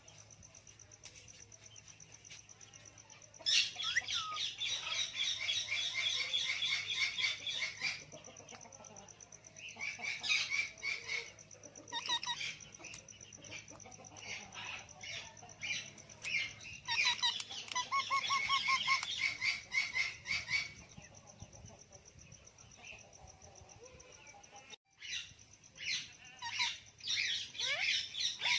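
Ringneck parrots (rose-ringed parakeets) chattering and squawking in four bursts of rapid calls a few seconds each, over a faint steady high whine.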